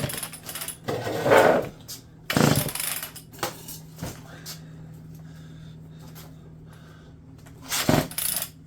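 Homelite EZ two-stroke chainsaw being pull-started with its recoil starter cord: three quick pulls in the first few seconds and another near the end. The cylinder has been primed with a little gas, and the engine is not yet catching.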